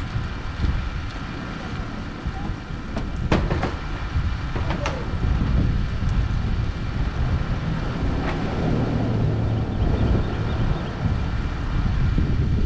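Steady low rumble of an idling van engine, with a few sharp clicks and knocks a few seconds in.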